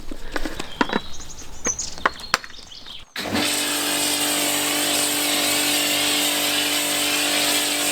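Scattered light clicks and knocks of equipment being handled. Then, from about three seconds in, a Nilfisk E145.4 electric pressure washer runs steadily, its motor humming under the hiss of the spray.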